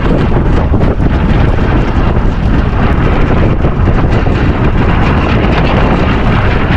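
Strong wind buffeting the microphone in a blustery sea breeze of about 30 knots: a loud, steady rumbling roar with no break.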